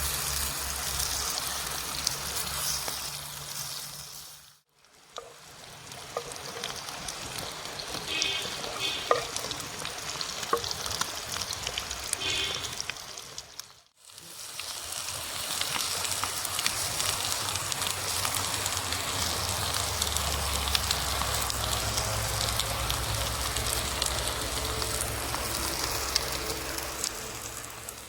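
Omelet eggs frying and sizzling in a pan over a wood fire, a steady crackling hiss. The sound fades out and comes back twice.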